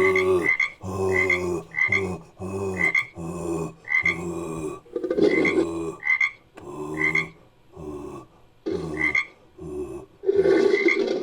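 A run of frog croaks, about one a second and a dozen in all, each a short high chirp leading into a low buzzing croak. The calls are edited frog recordings used as the voice of a made-up creature.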